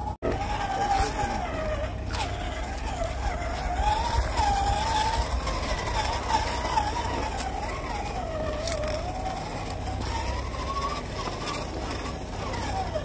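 Electric motor and gearbox whine of a 1/10-scale RC rock crawler, wavering up and down in pitch as the throttle is worked, with a few sharp clicks.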